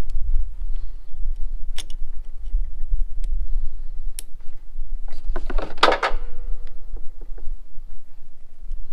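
Pliers and metal hose clamps clicking on a mower's fuel line as a new inline fuel filter goes in, with a few sharp clicks and, about six seconds in, a short louder scrape that leaves a brief ringing tone. A steady low rumble on the microphone runs underneath.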